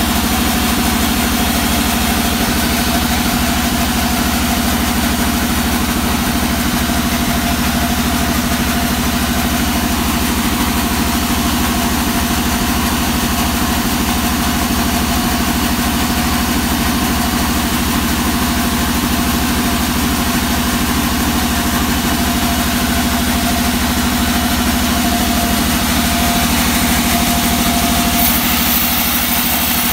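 Sawmill band saw running with a steady, loud hum as a hard teak log is fed through the blade, with a higher hiss coming in near the end.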